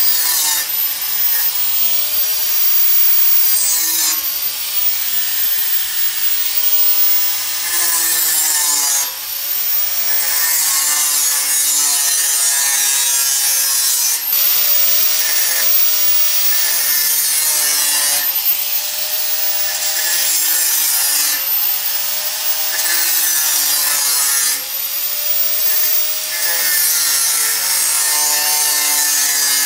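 Angle grinder with a thin cut-off disc cutting through steel sheet: a loud, hissing, abrasive screech over the motor's whine. The whine sags in pitch each time the disc bites into the cut and climbs back as it eases off, several times over.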